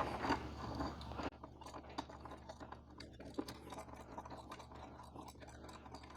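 Faint clicks and scrapes of a steel bolt and washer being handled and threaded by hand into a luggage-rack leg.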